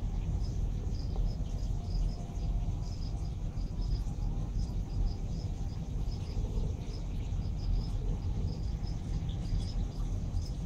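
A cricket chirping in short high chirps, a few a second, over a low steady rumble.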